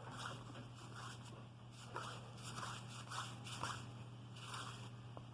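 Cardboard baseball trading cards sliding against one another as a pack is flipped through card by card: soft, brief swishes roughly every half second to a second, over a low steady hum.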